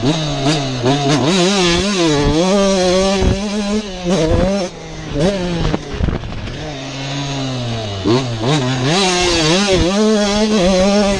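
2019 Husqvarna TC85's 85cc two-stroke engine revving hard, its pitch climbing and falling repeatedly as the rider works the throttle and shifts gears. It drops back in the middle and climbs again near the end, with a few sharp knocks as the bike goes over the track, heard from on board.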